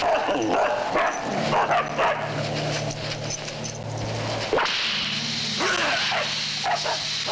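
Sled dogs yelping and barking excitedly, with several sharp cracks, the loudest about four and a half seconds in, over a low steady hum from about a second in.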